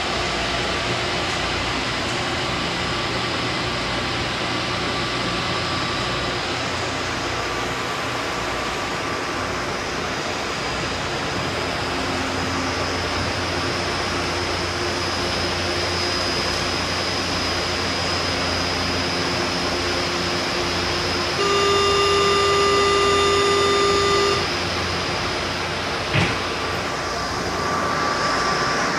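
Inside a São Paulo Metro Fleet J train car: steady running noise of the car, then a loud steady electronic door-closing warning tone for about three seconds, a single knock as the sliding doors shut, and the noise building as the train pulls away.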